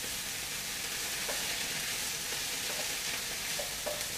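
Vegetables sizzling hard in a hot wok on a high flame, the hiss lively just after a splash of vinegar. A wooden spatula stirs them, with a few light knocks against the pan.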